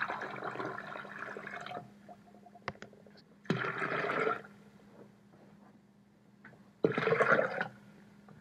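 Water poured from a measuring cup into a pitcher in three separate pours: the first about two seconds long, the next two about a second each, with a few light knocks between.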